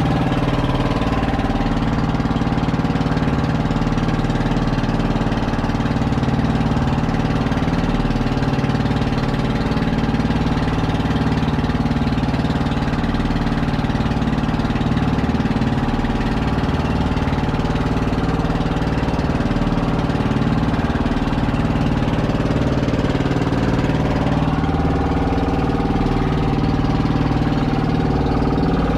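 Fishing boat's engine running steadily at a constant speed.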